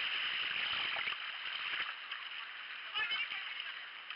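Water splashing and sloshing around a sea kayak as it is paddled, over a steady hiss.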